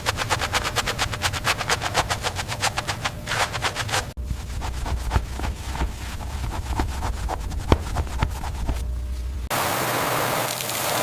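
A power tool rattling with fast, even impacts, roughly ten a second, which cuts off after about four seconds. Then comes a low machine hum with scattered clicks, and a steady hiss starts near the end.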